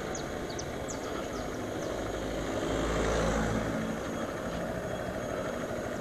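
Yamaha dual-sport motorcycle running at low speed while being ridden, its engine hum mixed with wind and road noise. A low rumble swells briefly about three seconds in.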